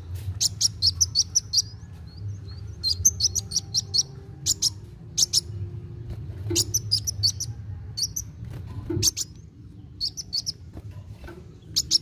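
A male sunbird singing in quick, high twittering phrases of rapid chirps and clicks, repeated with short pauses between them.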